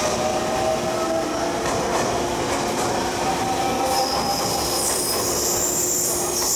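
JR 383 series limited express electric train moving along the platform, with a steady whine. From about four seconds in, a high-pitched wheel squeal joins it.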